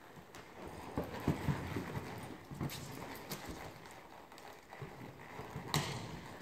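Hoofbeats of a horse moving on soft arena sand: irregular muffled thuds, with a sharper knock near the end.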